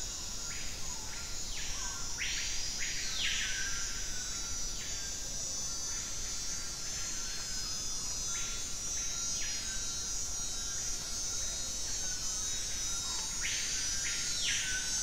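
Rainforest insect chorus: a steady high buzz under repeated short pulsing calls, with two louder, longer calls about two seconds in and near the end.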